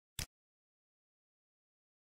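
A single short mouse click, about a fifth of a second in, against otherwise dead silence.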